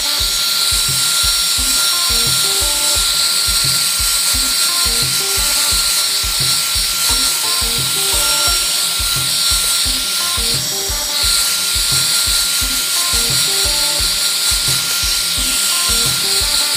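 A handheld hot-air blower running steadily with a loud airy hiss and a thin whine, heating a phone's back cover to soften its adhesive. Background music with a steady beat plays along.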